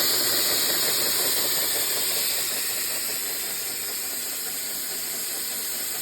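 Live-steam boat's steam plant running with a steady hiss, growing gradually quieter from about two seconds in.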